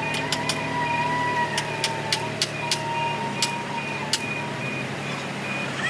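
A steady, slightly wavering mechanical whine over a low hum, with a higher tone that switches on and off and about a dozen sharp knocks at irregular intervals.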